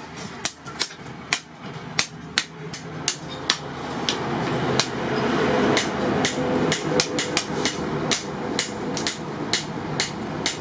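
Hand-hammer blows on a steel bar being forged on a small post anvil, sharp metallic strikes at about two to three a second. A steady rushing noise rises in behind the blows from about four seconds in.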